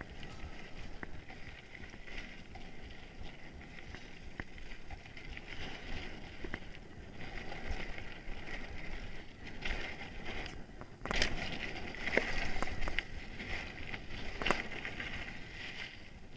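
Trek Remedy 9 mountain bike riding fast down a dry dirt trail: tyres crunching over dirt and gravel, the bike rattling and clicking, with wind on the microphone. About eleven seconds in it gets louder and rougher, with a hard knock from a bump then, and another a few seconds later.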